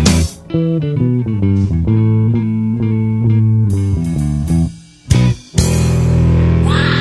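Rock music on a soundtrack: a guitar and bass riff that breaks off briefly about five seconds in, then comes back fuller and heavier with the whole band.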